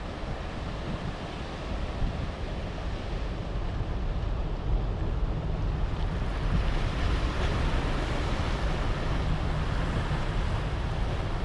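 Ocean waves washing over rock shelves, with wind rumbling on the microphone. The surf grows louder about halfway through.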